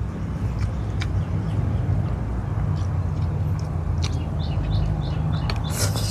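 A steady low hum, like a motor running, with birds chirping from about four seconds in. Faint clicks and smacks of someone eating with their fingers come through.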